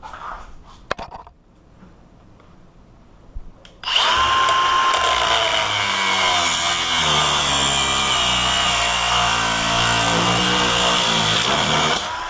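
Angle grinder cutting into a Master Lock M50XKAD hardened disc padlock. It spins up about four seconds in, runs loud and steady with a high whine for about eight seconds, then winds down near the end. A few handling clicks come before it starts.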